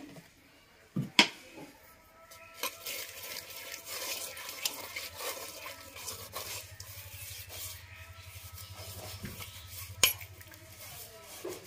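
A hand rubbing mustard oil around the inside of an earthen clay pot: a continuous scraping, rubbing sound against the clay. Two sharp knocks come about a second in and another near the end.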